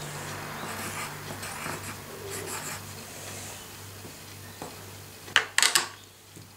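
Pencil scratching on paper, then a quick cluster of sharp clicks a little over five seconds in as plastic Mini LUK tiles are set into their plastic case.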